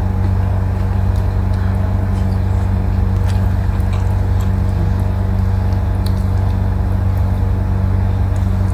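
A steady low hum throughout, with soft chewing and mouth clicks from eating fried chicken by hand over it.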